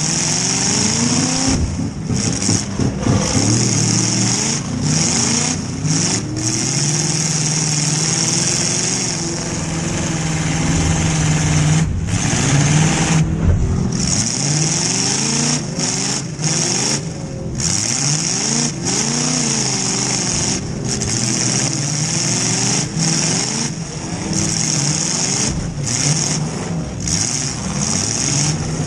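Demolition derby car's engine heard from inside the gutted cab, revving up and down again and again as the car is driven, over a steady high hiss.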